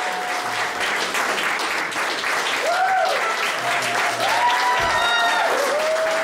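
Audience clapping steadily, with a few long cheering calls that rise, hold and fall over the applause.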